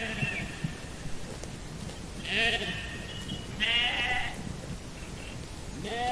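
Sheep bleating: two short bleats about a second and a half apart in the middle, with the end of one call at the start and another beginning near the end.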